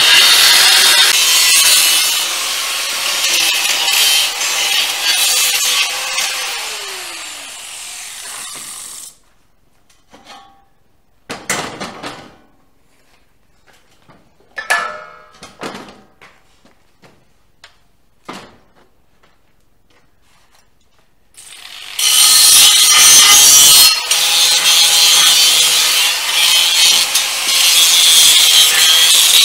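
Angle grinder grinding on a steel pipe, running with a steady tone, then released about seven seconds in and spinning down with a falling pitch. A quiet stretch with a few knocks of the pipe and tools being handled follows, and about two-thirds of the way through the grinder starts up again and grinds the steel loudly.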